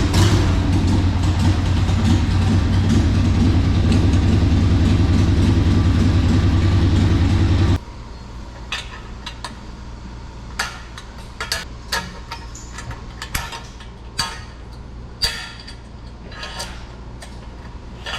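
A loud, steady motor hum runs for about eight seconds and cuts off suddenly. Then come scattered light metallic clicks and taps of hand tools at work.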